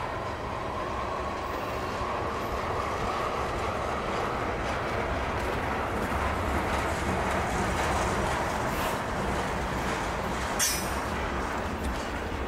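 Freight train tank cars rolling slowly past with a steady wheel rumble and rail clatter, heavy wind buffeting the microphone. A faint wheel squeal sounds in the first few seconds, and there is one sharp click near the end.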